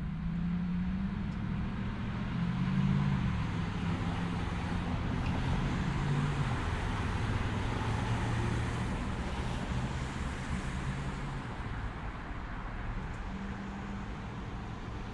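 Roadside traffic: a motor vehicle going by, its engine hum and tyre noise swelling over the first few seconds and then slowly fading, over steady road noise.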